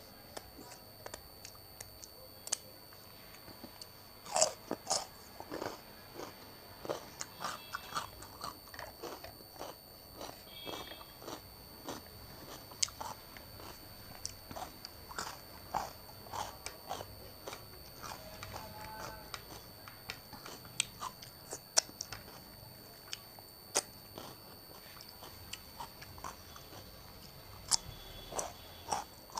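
Close-miked eating: chewing and crunching of khichdi, dal with curd and raw cucumber, with many sharp, irregular mouth clicks.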